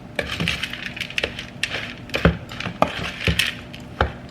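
A spoon stirring a thick, sticky mixture of oats, peanut butter, goji berries and sliced almonds in a bowl, with irregular knocks and scrapes of the spoon against the bowl.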